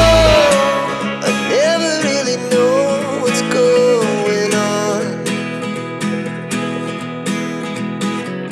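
Background music: a guitar-led song with a melody line over it. The deep bass drops out about half a second in, leaving guitar and percussion.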